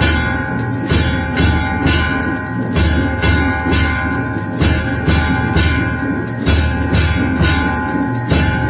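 Temple bells ringing continuously for the aarti, struck about twice a second so that their tones ring on over one another, with a low rumble underneath that comes and goes.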